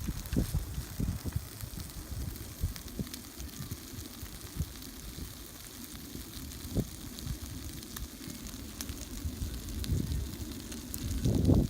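Bacon sizzling on a grill over a small wood fire, with scattered crackles from the burning wood. A louder low rumble comes near the end.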